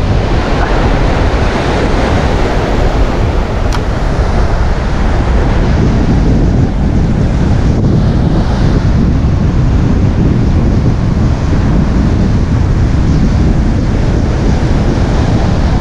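Strong wind buffeting the microphone over breaking surf: a loud, steady rumble of wind noise with the wash of waves beneath it. A single sharp click about four seconds in.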